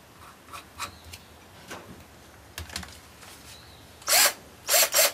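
Keyless chuck of a Hitachi 10.8 V cordless drill driver being tightened by hand onto a drill bit: light clicks of the bit and chuck being handled, then three short, loud ratcheting bursts near the end as the chuck is cinched down.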